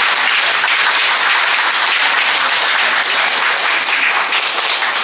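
Applause from a small audience, many hand claps running together into a steady patter that eases slightly near the end.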